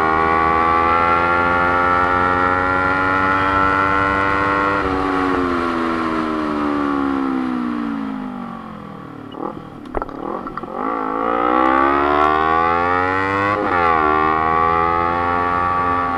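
Sport motorcycle engine heard from onboard: held at high revs, then the revs fall away as the bike slows, with a few quick throttle blips around the middle, before it pulls up again through a gear change and eases off near the end.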